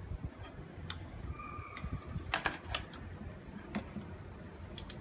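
Scattered light clicks and ticks from a wire stripper working into the hardened ribbed sheath of an old cable, with a brief squeak about a second and a half in.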